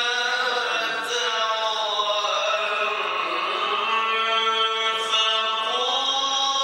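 A man's voice chanting Quran recitation into a microphone in the melodic mujawwad style. He holds one long, ornamented vowel whose pitch winds down and back up without a break.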